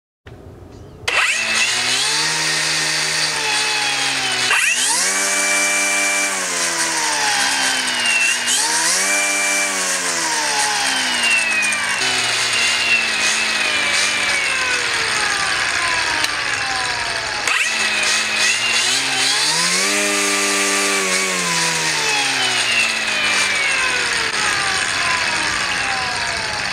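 DeWalt DCST920 20V brushless string trimmer spinning up and winding down several times on its variable-speed trigger: a loud electric whir whose pitch rises and falls, with one long slow wind-down in the middle. At its top speed of about 6000 RPM in high-power mode it reaches about 94 dB, above the 85 dB level that damages hearing.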